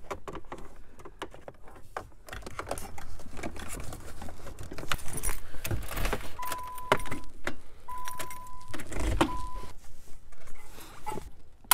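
Plastic wiring-harness connectors and loose cables being handled behind a car dash: a run of light clicks, rattles and jingling. Three short beeps at one steady pitch come a little past the middle.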